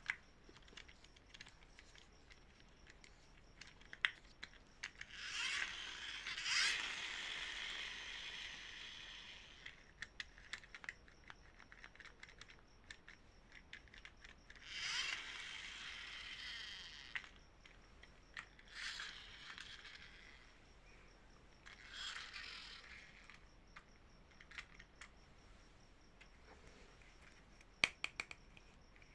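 Packaging being handled and opened: several bursts of crinkling and rustling, with many small clicks and taps in between.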